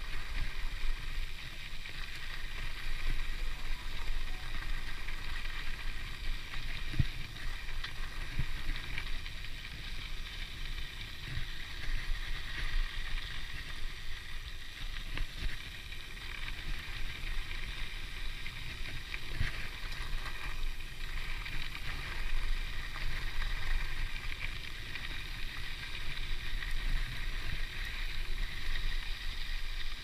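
Mountain bike rolling along a packed-dirt track: tyre noise and wind rumble on the camera, under the steady high buzz of a Hope Pro 4 rear hub's freewheel, with a few soft knocks from bumps.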